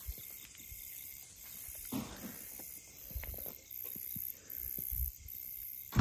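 Night insects, crickets, chirring steadily in a high, pulsing drone, with a few soft thumps and scuffs of footsteps on a path.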